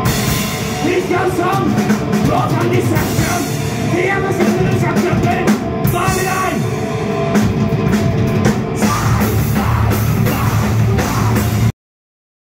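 Metal band playing live in a rehearsal room: distorted electric guitar, electric bass and a drum kit, with the bassist singing into the microphone. The music stops abruptly just before the end.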